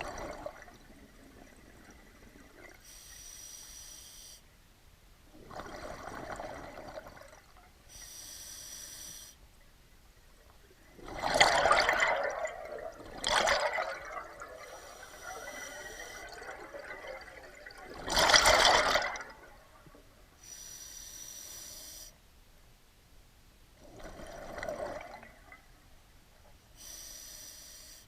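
Scuba diver breathing underwater through a regulator: slow breaths about every six seconds, each a hissing inhale followed by a rush of exhaled bubbles.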